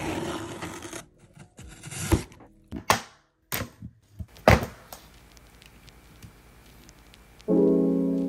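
Box cutter slicing along the tape of a cardboard shipping box for about a second, then half a dozen sharp clicks and taps of packaging being handled. Piano music starts near the end.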